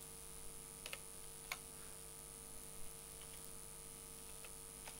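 A few faint, scattered clicks of a computer keyboard and mouse, over a steady electrical hum.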